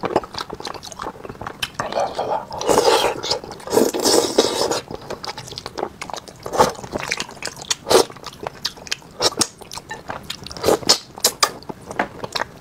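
Close-miked eating sounds: wet chewing and many sharp lip smacks while eating sauced stewed fish, with a denser stretch of mouth noise between about three and five seconds in.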